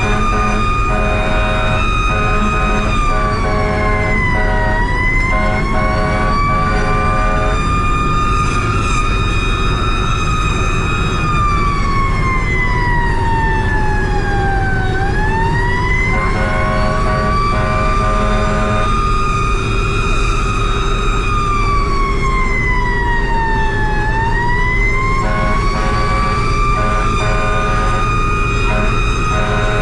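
Fire truck siren wailing in slow cycles, rising quickly, holding, then falling slowly, about every ten seconds, over the low rumble of the truck's engine. A second, lower tone pulses on and off in short bursts during the first seconds and again near the end.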